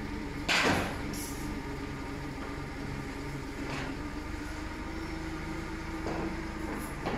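Engine running steadily with an even drone. A brief loud burst of noise comes about half a second in, with fainter ones near four and seven seconds.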